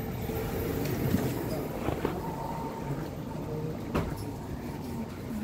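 Steady low rumble inside a passenger train carriage, with a short click about four seconds in.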